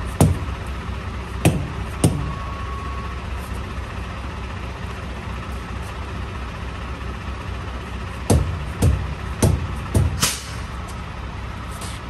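Semi-truck engine idling steadily, with sharp knocks: three near the start, then five more in quick succession in the second half, the last followed by a short hiss of air.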